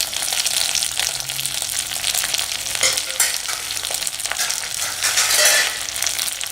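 Fresh medicinal leaves (thuthuvalai and others) sizzling in a little oil in a kadai while a spatula stirs and scrapes through them. The sizzle swells briefly about five seconds in.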